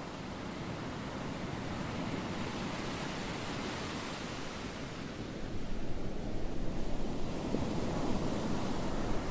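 Ocean surf: waves breaking and washing in, a steady rushing that grows louder and surges more about halfway through.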